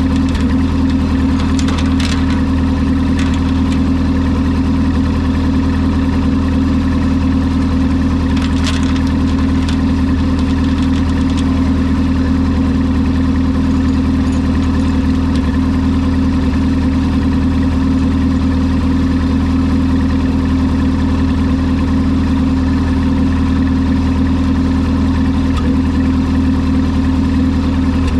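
Tractor engine running steadily at a constant speed, with a few faint knocks now and then.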